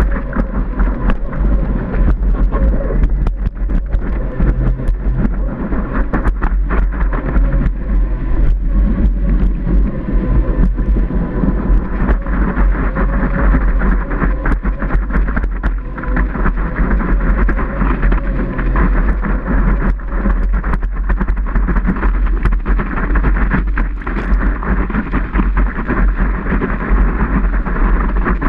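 Rushing water and wind buffeting a surfboard-mounted camera's microphone as the longboard planes across a breaking wave, with a heavy low rumble and constant crackle of spray. A faint steady whine runs underneath, from the board's Wavejet jet drive.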